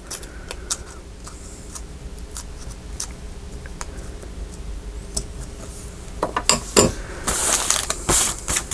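Craft supplies being handled on a work table: scattered small clicks and taps, then a few louder knocks and, near the end, a denser stretch of rustling and clatter.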